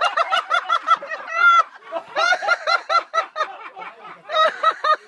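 High-pitched laughter in three quick bouts of short 'ha' pulses, about six a second.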